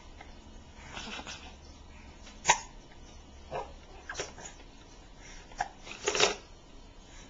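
A baby hiccuping: a series of about six short, sharp hiccups at uneven intervals, the loudest about two and a half seconds in.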